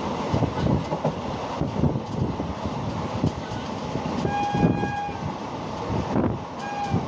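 Train running along the track, wheels clattering over the rails, with the train horn sounding for under a second about four seconds in and a shorter toot near the end.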